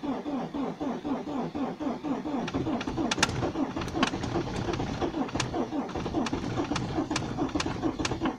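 1994 Ford Escort 1.8D's four-cylinder diesel cranking on the starter in a cold start, at about five compression beats a second. About two and a half seconds in it starts to fire, with sharp diesel knocks over the beat. The glow plugs had been cycled twice before cranking.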